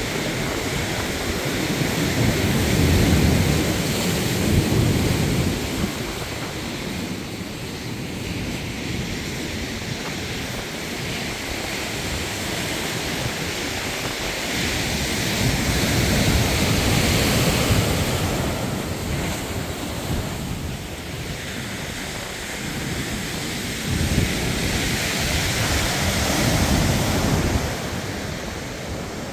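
Rough storm surf breaking and washing against the shore, a steady rushing that swells several times, with gusts of wind buffeting the microphone.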